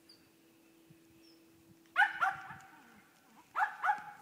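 Carolina cur dog barking: two quick barks about two seconds in, then two more about a second and a half later.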